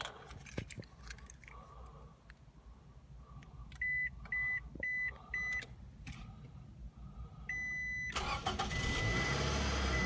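A 2009 Scion tC being remote-started in neutral: four short beeps and then a longer beep, after which the car's 2.4-litre four-cylinder engine starts about eight seconds in and keeps running, with more short beeps over it.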